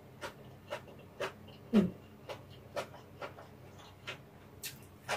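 Close-miked chewing of stir-fried ramen with bean sprouts: a run of sharp crunches and wet mouth clicks about twice a second, with one louder short 'mm' falling in pitch about two seconds in.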